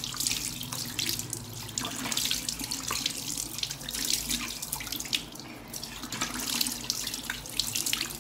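Tap water running into a bathroom sink while cupped hands splash it onto a face in irregular splashes, rinsing off a face wash mixed with baking soda.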